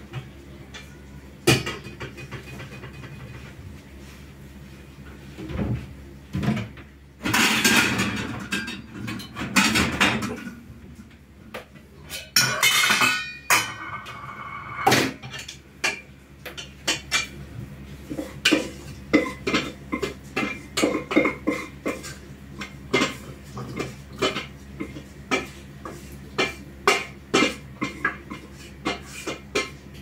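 Steel pots and lids clattering as they are handled, then a wooden spoon knocking and scraping against a metal pot over and over, about two or three knocks a second, through the second half.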